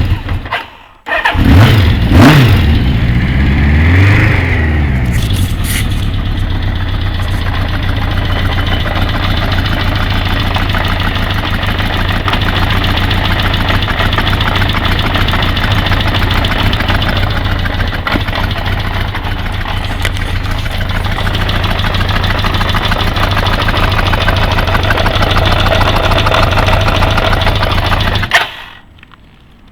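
Kawasaki GPZ550 air-cooled inline-four motorcycle engine starting about a second in and being blipped a couple of times, then idling steadily until the sound drops away near the end. Through the running there is a ticking, clacking noise from the engine that the owner cannot trace; he does not think it is the cam chain tensioner.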